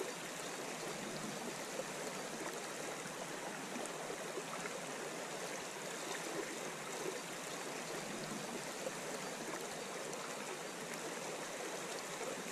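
Steady rush of a shallow, fast-flowing river's current rippling over its bed.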